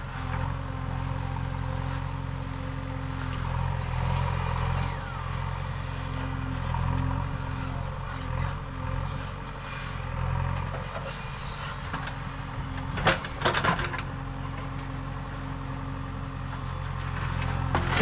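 JCB 3DX backhoe loader's diesel engine running steadily under load while the backhoe digs. A brief cluster of sharp knocks comes about two-thirds of the way through.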